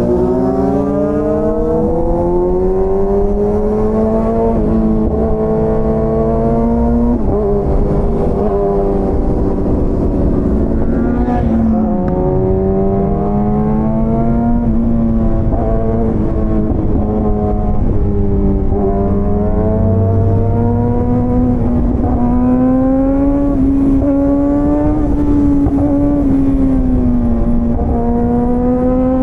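Superbike engine and exhaust under way, its pitch climbing as it pulls and dropping back several times as it shifts or rolls off the throttle, over steady wind noise.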